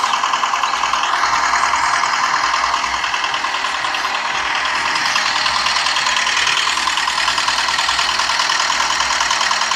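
Miniature model diesel engine running steadily and driving a belt-driven toy water pump, with a fast, even knocking rhythm as the pump pours water into the tank.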